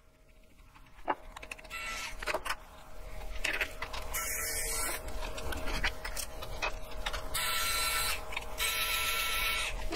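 A screwdriver backing small screws out of a car radio's metal front panel. There are a few light clicks, then three short spells of scraping noise, each under a second, as the screws turn.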